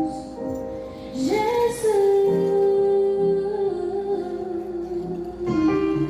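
Song with a female voice that slides up about a second in and then holds one long note over sustained keyboard chords.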